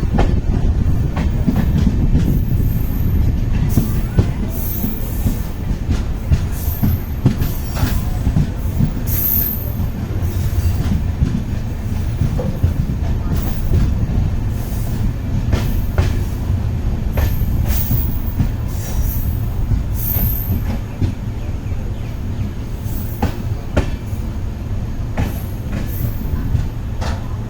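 A train moving along the rails with a steady low rumble, wheel clicks over the rail joints, and brief high-pitched wheel squeals that come and go, mostly in the first two-thirds.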